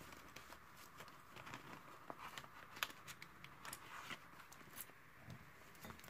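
Faint rustling of clear plastic cash-envelope pockets and paper being handled, with scattered small clicks and taps.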